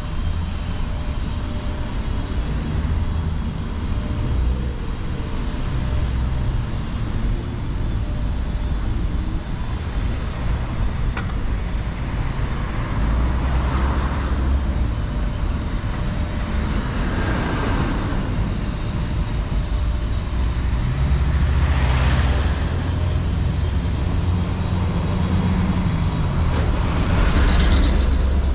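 Street traffic: a steady low rumble of engines and tyres, with vehicles passing one after another in the second half. A bus passes close near the end, the loudest moment.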